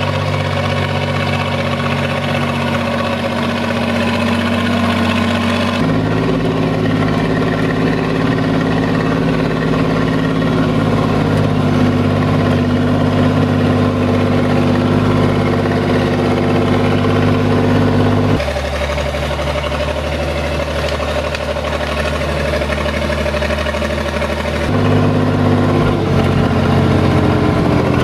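SAME Laser 110 tractor's air-cooled diesel engine running steadily as the tractor drives, heard partly from inside the cab. The engine sound shifts abruptly about six seconds in, again around eighteen seconds and around twenty-five seconds.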